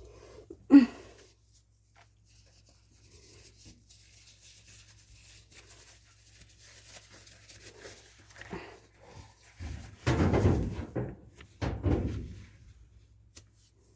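Handling noise from dryer vent cleaning: one sharp thunk about a second in, then faint scraping and rubbing, with two louder bouts of scraping and rustling near the end.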